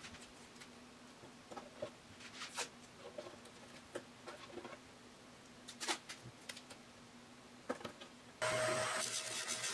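Light scattered taps and rustles of hands working strips of masking tape on the thin wooden edge of a mandocello body, over a faint steady hum. About eight seconds in, a spindle sander cuts in abruptly, running loudly and steadily with a steady tone.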